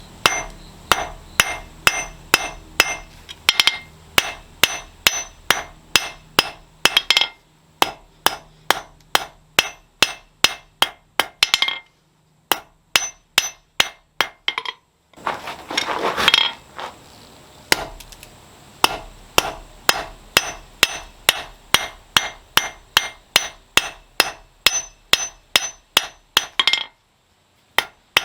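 Blacksmith's hammer forging hot metal on an anvil. The strikes ring out at about three a second in long runs, with a few short pauses. A brief rushing noise comes about 16 seconds in.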